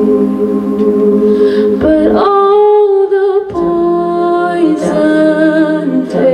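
A cappella vocal group singing held chords without clear words, the harmony shifting about two seconds in and again about a second and a half later, with a high voice held over the chord in between.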